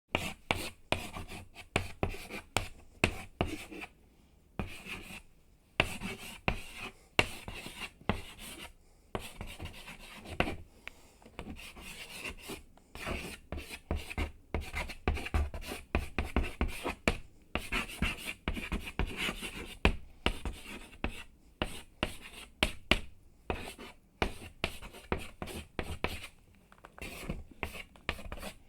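Chalk writing on a blackboard: quick, irregular scratching strokes with short taps as the chalk meets the board, broken by brief pauses between words.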